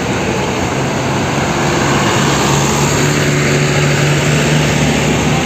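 Diesel tour coach engines running as buses pull past close by, a steady low drone that grows louder about two seconds in.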